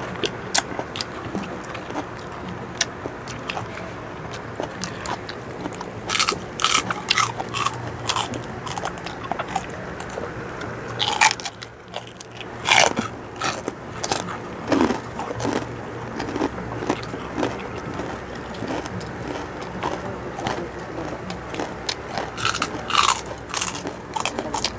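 Close-up crunching and chewing of crispy deep-fried pork chicharon: several clusters of loud crackling bites, with quieter chewing between them.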